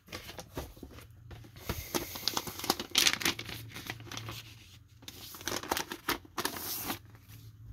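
Paper inner sleeve of a vinyl LP rustling and crinkling as it is slid out of a cardboard jacket and handled, in a run of irregular scraping slides. The loudest rustles come about three seconds in and again near the end.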